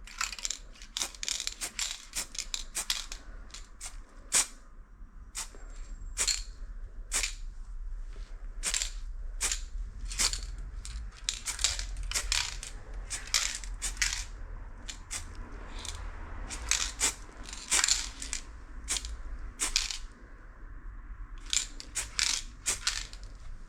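Montana marble-effect aerosol spray can hissing in many short bursts, roughly one or two a second.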